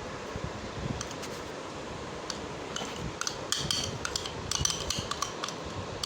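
A spoon clinking and scraping against a metal bowl while grated coconut is added to the aval mixture: a run of light clinks that starts about two seconds in and grows busier toward the end, over a steady background hiss.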